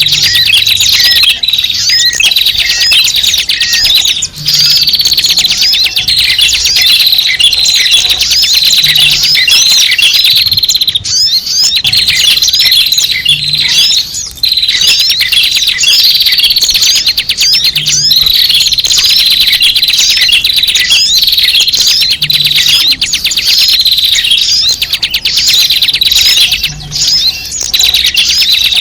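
Loud, dense chorus of many small birds chirping and twittering: a looped lure-call recording (suara pikat) used to draw small birds in, repeating about every four and a half seconds.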